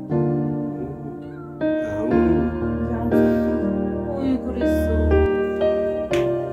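Background piano music, with a kitten meowing a few times under it.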